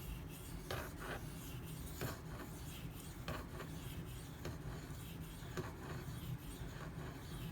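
Steel knife blade (SG2 core) being drawn across a wet Shapton Pro 5000-grit whetstone in a slurry: soft, repeated rasping strokes about a second apart, finishing the edge after the burr was raised.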